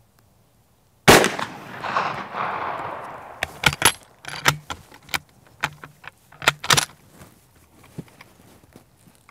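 A Mauser Model 71/84 11mm bolt-action rifle fires one loud shot about a second in, with a long rolling echo that fades over a couple of seconds. The shooter then works its bolt, which is not the smoothest, in a quick run of metallic clacks and clicks.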